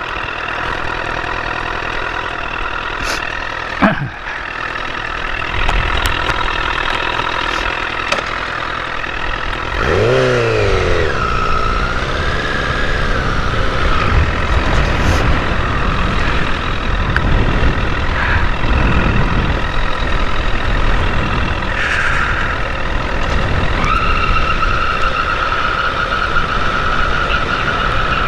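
A 2008 Honda CBR1000RR's inline-four engine, heard from the bike, ticks over steadily at first. A sharp click comes about four seconds in. About ten seconds in the engine revs up, dips, then runs on louder under way with road and wind noise.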